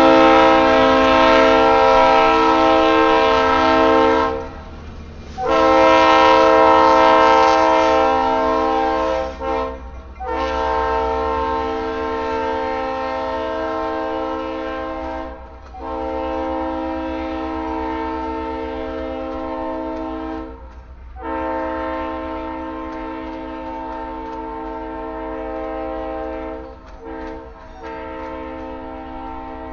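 Freight locomotive air horn sounding a steady multi-note chord in a series of long blasts, each four to five seconds with short breaks, then a few shorter toots near the end, over the low rumble of freight cars rolling past.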